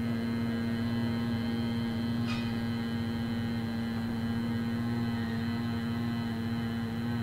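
A man humming the closing 'M' of a chanted Om with lips closed: one steady low note held without a break.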